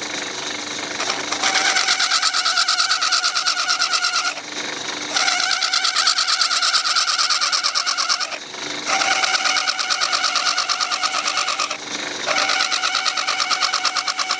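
Scalpel blade scraping against a workpiece spinning in a small metalworking lathe, a fast rasping chatter in four stretches broken by short pauses, over the lathe's steady hum.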